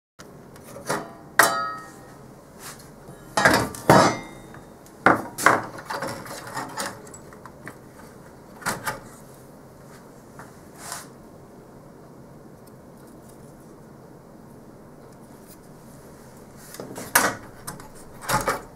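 Clicks, knocks and light metallic clatter of the sheet-metal cover and plug-in port boards of a Bay Networks 28115/ADV switch being handled and pulled out of the chassis. The knocks come in scattered clusters, loudest a little after the start and again near the end, and one about a second and a half in rings briefly.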